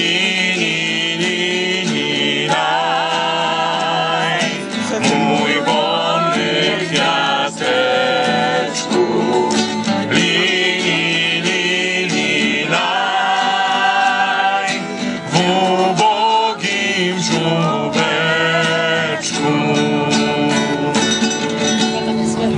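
Polish Christmas carol sung by voices into a microphone, with acoustic guitar strumming along, in phrases of a few seconds each.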